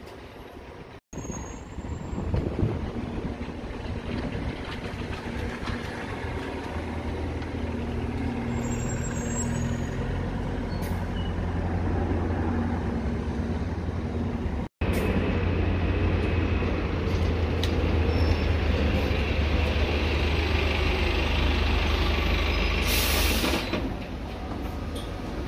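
Bus diesel engines running close by, a steady low drone that builds in level, broken off twice for an instant. Near the end comes a short loud hiss of released compressed air, typical of a bus's air brakes.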